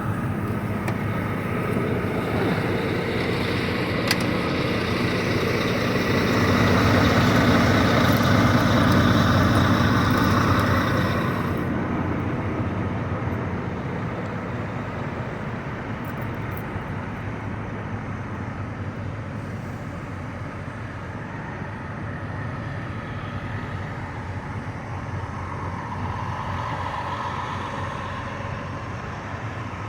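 Diesel truck engines running, with a steady low hum under broad noise. About twelve seconds in it suddenly turns quieter and more muffled.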